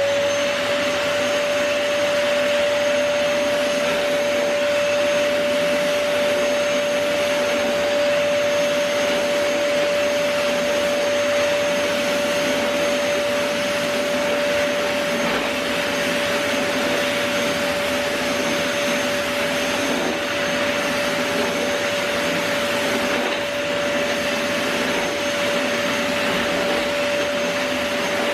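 Bagless vacuum cleaner running steadily while vacuuming sawdust out of carpet: one steady high motor whine over the rush of air.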